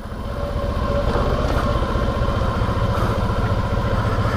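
Motorcycle engine held in first gear on a dirt-road descent, engine braking with the throttle closed. It grows louder over the first second, then runs steadily.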